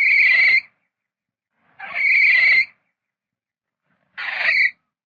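Mole squeaking: three short, high squeals about two seconds apart, each under a second long.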